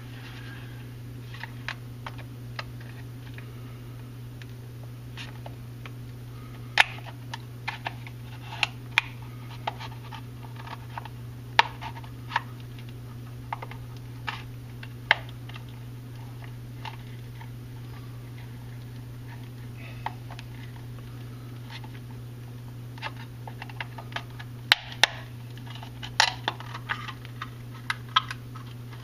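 Irregular plastic clicks and snaps from the blue EcoTech VorTech MP10 controller case as it is handled and pried apart with a small tool, over a steady low hum. The clicks come in two busy spells, one after about seven seconds and one near the end.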